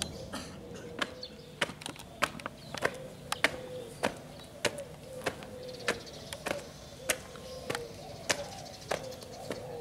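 Marching footsteps: hard-soled shoes striking brick paving in a steady cadence, a little under two sharp steps a second.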